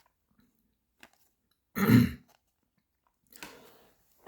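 A man clearing his throat: one loud short cough-like burst about two seconds in, and a softer one near the end.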